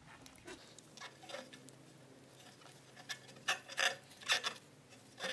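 Light clicks, taps and rubbing as a gloved hand fits a muffler gasket onto a motorcycle exhaust header pipe. The clicks come mostly in the second half.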